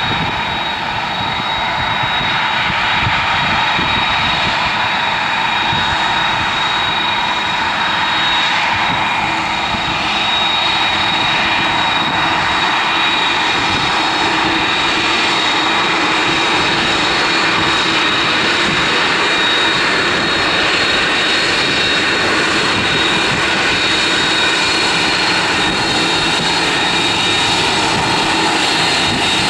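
Airbus A310 jet engines running at taxi power: a loud, steady rush with a high steady whistle held above it.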